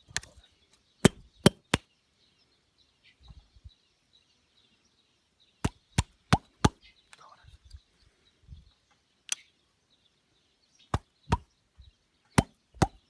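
Sharp single knocks struck in short groups of two to four, roughly a third of a second apart, with pauses of a few seconds between the groups.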